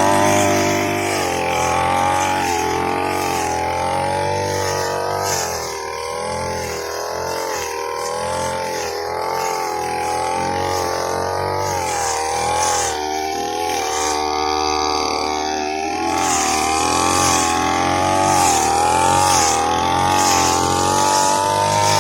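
Small engine of a grass-cutting machine running continuously, its pitch rising and falling in uneven waves as the revs change.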